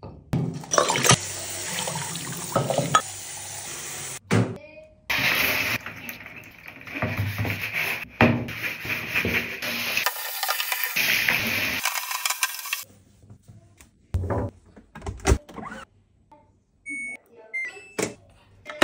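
Bathroom cleaning sounds in a tiled room: handling and knocking of items, then a stretch of steady water spray from a handheld shower head. Near the end come clicks and a couple of short beeps as the buttons on a washing machine's control panel are pressed.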